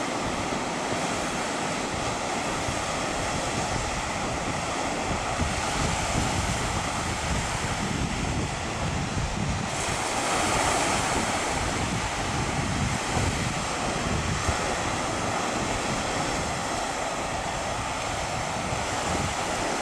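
Sea surf washing steadily, mixed with wind blowing on the microphone; the surf swells louder about halfway through.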